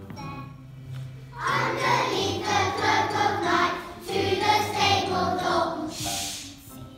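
Children singing a song over a backing track with a steady low accompaniment; about one and a half seconds in, many voices join as a loud chorus, pausing briefly in the middle. A brief high hiss sounds near the end.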